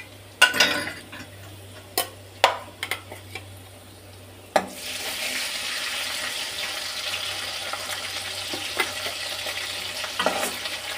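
Potatoes and onions frying in oil in a pan: a few sharp knocks in the first half, then a steady sizzle that starts suddenly about halfway through.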